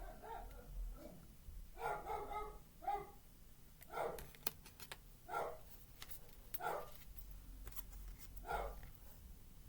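A dog barking repeatedly, about eight short barks spaced a second or so apart, with light clicks between them.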